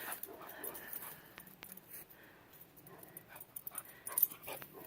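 Dogs at play: faint whimpering and scuffling, with a cluster of louder short clicks and taps near the end.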